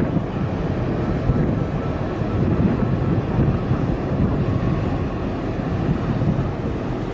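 Wind buffeting the microphone in a steady, gusty low rumble, over the low drone of a container ship moving past on the water.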